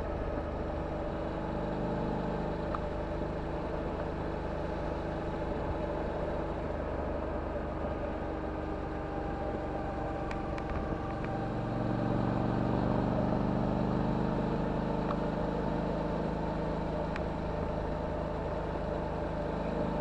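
Suzuki DL650 V-Strom's V-twin engine running steadily under way through a titanium Akrapovic exhaust. Its note changes and grows a little louder about twelve seconds in.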